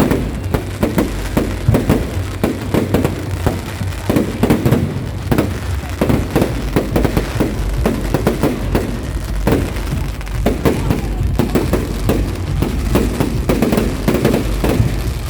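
Fireworks going off in rapid succession: a dense run of bangs and crackles, several a second, over a steady low rumble.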